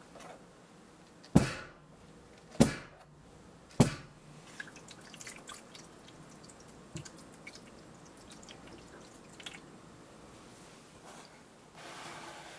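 A metal cake pan of batter knocked down on the counter three times, sharp knocks about a second apart with a short ring, typical of settling the batter and knocking out air bubbles before baking. After them come faint ticks and light trickling as hot water is poured into the outer tray for a water bath.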